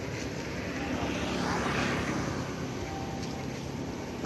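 An aircraft passing overhead: its engine noise swells to a peak about two seconds in and then fades.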